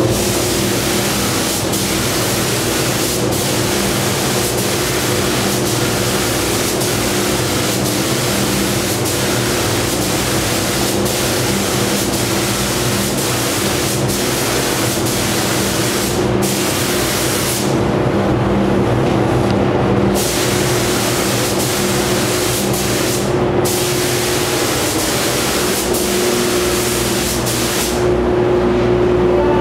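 Gravity-feed paint spray gun hissing with compressed air as it sprays clear coat, the hiss cutting out briefly a few times as the trigger is let go. A steady low hum runs underneath.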